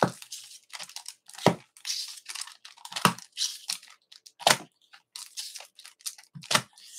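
Comic book packaging being handled and unwrapped: plastic and paper crinkling and tearing, with about five louder crackles spread through it.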